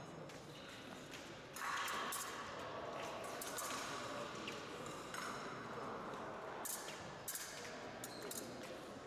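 Épée bout on a fencing piste: scattered sharp taps and metallic clicks, several in quick succession in the second half, over the hiss of a large sports hall.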